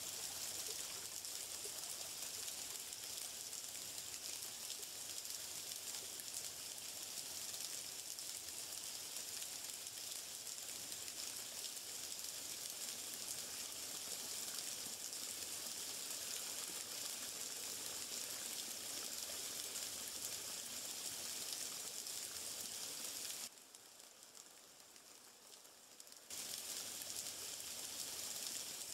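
Steady hiss of running water. It drops away sharply for about three seconds near the end, then resumes.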